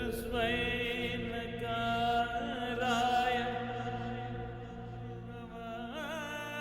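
Devotional Hindu music: a wordless, chant-like vocal sustained and wavering in long held tones over a steady low drone.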